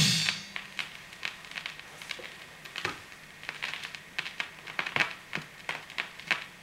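The song ends within the first half second. After that, a vinyl single's surface noise takes over as the stylus runs into the lead-out groove: faint hiss with irregular sharp clicks and crackles, several a second.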